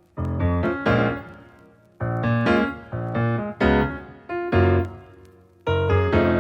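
Background piano music: chords struck in short phrases, each fading away before the next.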